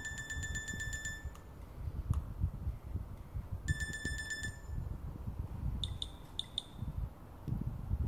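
Nokia 6500 Classic's built-in alert tones previewed through its small loudspeaker while the tone list is scrolled: a fast-pulsing alarm beep about a second long, sounded twice a few seconds apart, then a quick run of short higher pips about six seconds in.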